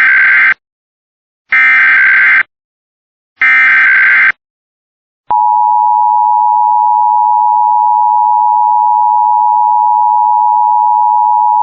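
Emergency Alert System test tones: three roughly one-second bursts of the SAME digital data header, a rapid warbling screech between two high tones. After a second of silence the steady two-tone EAS attention signal (853 and 960 Hz together) starts about five seconds in.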